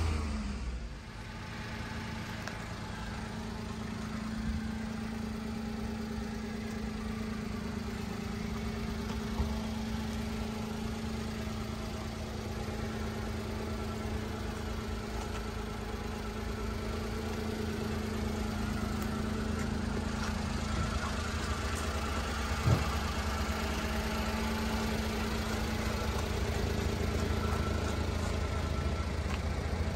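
1993 Daihatsu Hijet mini truck's small three-cylinder engine idling steadily, growing a little louder in the second half. A single sharp click about two-thirds of the way through.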